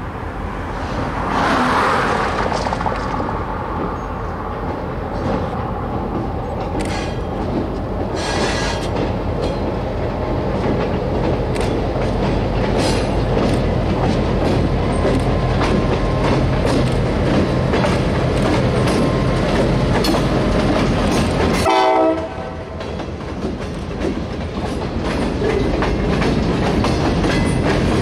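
San Joaquin Valley Railroad diesel locomotive 2089 grows louder as it draws near and passes, and its horn sounds. Then the freight cars roll by with a clickety-clack of wheels over the rail joints.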